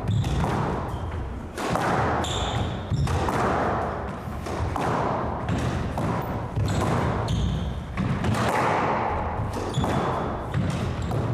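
Squash rally: the rubber ball struck again and again by racquets and smacking off the court walls, with short squeaks of court shoes on the wooden floor at a few moments.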